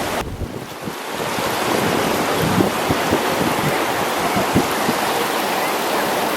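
Rushing river water: a loud, steady roar of white water, briefly muffled just after the start, with wind buffeting the microphone.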